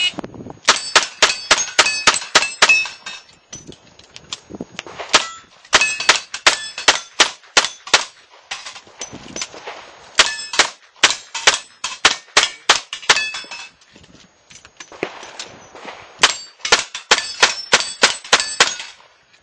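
Revolver fired in four fast strings of shots, each shot followed by the ring of a bullet striking a steel plate target, with short pauses between the strings.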